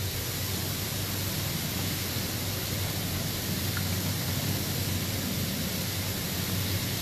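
Hot tub jets churning the water: a steady rushing hiss with a low hum underneath.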